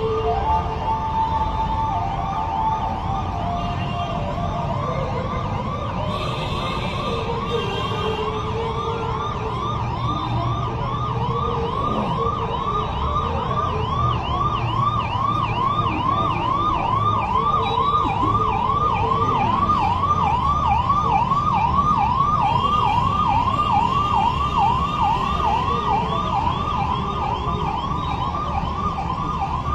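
Electronic vehicle siren sounding in a fast yelp: rapid, evenly repeated rising-and-falling whoops, over a steady low rumble of engine and road noise.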